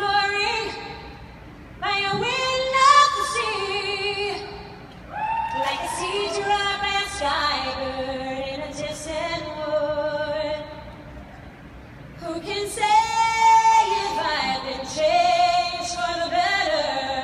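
A woman singing solo into a handheld microphone through a concert sound system, in phrases of long held notes with vibrato and short pauses between them.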